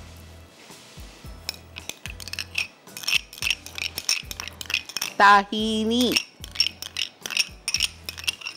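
Metal spoon clinking and scraping against a ceramic plate as dollops of cream are spooned onto a heap of spices, a quick run of clinks from a few seconds in. About five seconds in, a short vocal sound from a woman, rising in pitch at its end, is the loudest thing heard.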